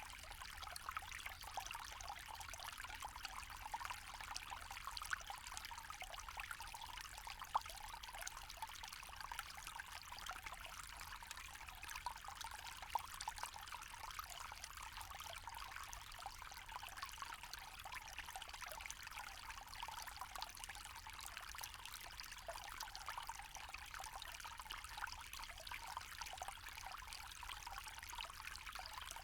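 Forest stream flowing steadily, an even wash of running water with no breaks.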